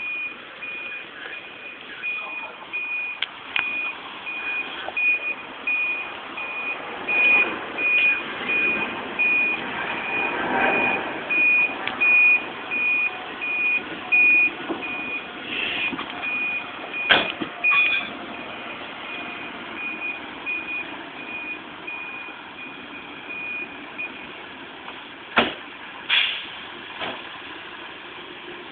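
Fire engine's reversing alarm beeping in an even rhythm over the truck's engine, stopping a few seconds before the end. Sharp knocks sound once about halfway through and twice near the end.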